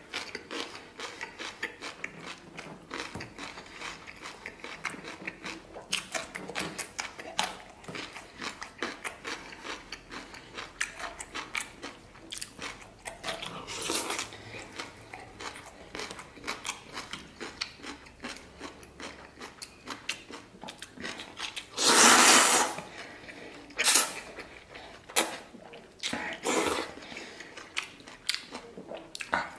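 A person eating oil-splashed noodles close to the microphone: chewing and mouth noises with small clicks throughout, and a loud slurp of noodles about 22 seconds in, followed by a few shorter slurps.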